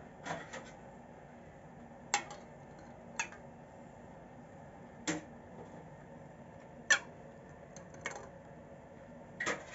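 Metal twist-off jar lids clinking against an enamel saucepan and each other as they are dropped into hot water to sterilise. There are about seven sharp clinks, a second or two apart.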